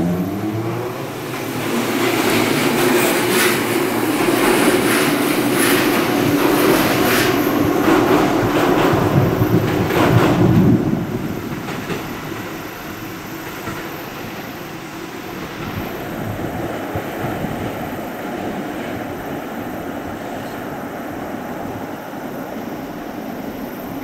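Two-car Tobu 8000-series electric train running past, its wheels clicking over the rail joints over a steady running hum. The sound drops suddenly about eleven seconds in, and a quieter rail rumble carries on.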